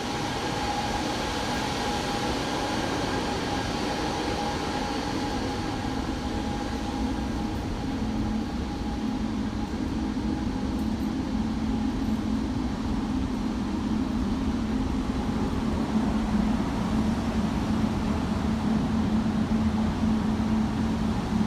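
Steady drone of hospital air handler fans and motors running. A higher whine fades away over the first half, while a low hum grows louder from about eight seconds in.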